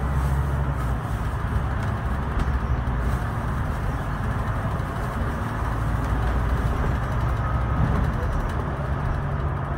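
A Scania K320IB bus under way, heard from inside at the front: its rear-mounted diesel engine runs with a steady low drone that swells slightly a couple of times, under a haze of tyre and road noise on a wet road.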